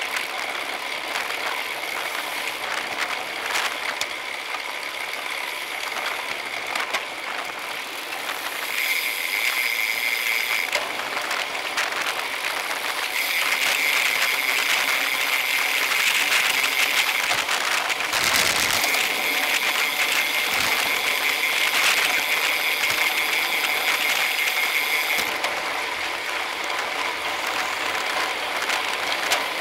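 Road bike freehub ratchets buzzing as riders coast in a group, over wind and tyre noise. The buzz grows louder a third of the way in and stays strong through most of the second half, with a brief rush of wind on the microphone just past the middle.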